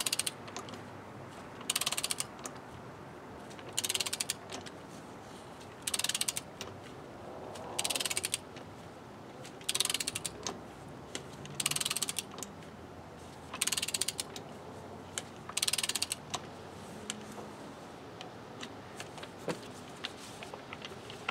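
A ratchet wrench clicking in short bursts, about nine times at roughly two-second intervals, as it is stroked back and forth to drive a 58:1 torque multiplier tightening a motorhome wheel's lug nuts. The nuts are being brought up toward torque in stages rather than all at once.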